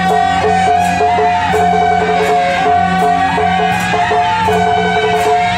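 Traditional Taiwanese procession band playing: suona shawms carry a sustained, shifting melody over a drum and cymbal strokes at an even beat.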